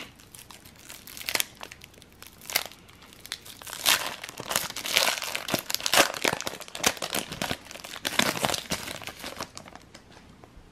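Foil wrapper of a Panini NBA Hoops trading card pack crinkling and tearing as it is peeled open by hand: a run of sharp crackles, thickest midway and dying away near the end.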